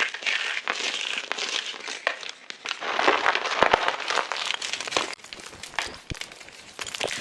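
Fresh gym chalk blocks being crushed and crumbled, a dense crunchy crackle of many small breaks, busiest about halfway through and thinning out near the end, with a few soft low thuds.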